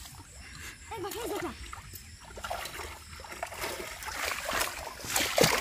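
Splashing and sloshing of shallow muddy water as hands grope and stir through it, getting louder near the end. About a second in there is a brief wavering voice-like call.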